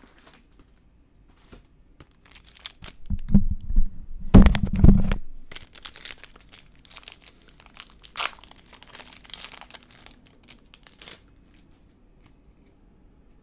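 Plastic wrapper of a trading-card pack being torn open and crinkled in the hands. The loudest rustling comes about three to five seconds in, with more crinkling a few seconds later.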